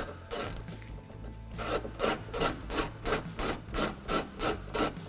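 Ratchet with a T30 Torx bit being worked back and forth to back out the lock cylinder's retaining screw, a rasping stroke about three times a second.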